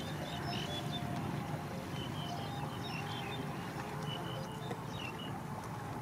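Outdoor field ambience: small birds chirping in short, scattered calls over a steady low rumble.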